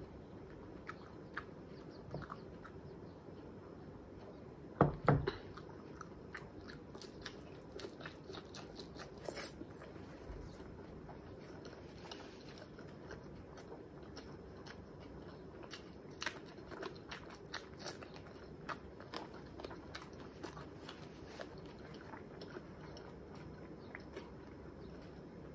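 Close-miked eating sounds of someone chewing a mouthful of fried egg: scattered small wet clicks and smacks throughout. A single loud thump about five seconds in.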